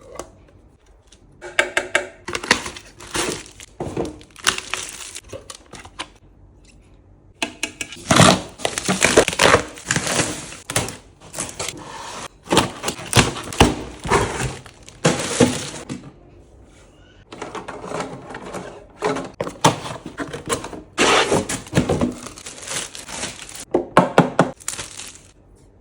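Plastic packaging crinkling and crackling, with knocks and clicks of hard plastic, as plastic fridge storage containers are unpacked and handled, in irregular bursts with brief pauses.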